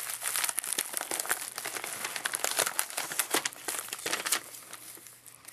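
Plastic bubble mailer crinkling and crackling as hands open it and reach inside, a dense run of crackles that thins out near the end.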